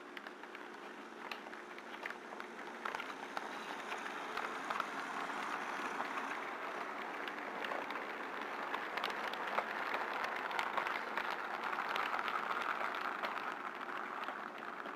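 HO scale model freight cars rolling past on the next track: a steady hiss-rumble of small metal wheels on the rails, dotted with quick clicks as they cross rail joints, growing louder over the first few seconds.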